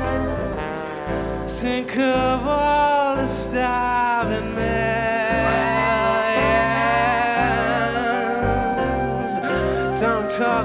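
Live performance of a slow, mournful song: a male voice singing over a jazz-band backing with brass and a steady bass pulse.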